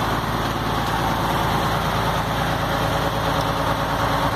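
Engine-driven piston water pump running steadily, with the engine's even low hum.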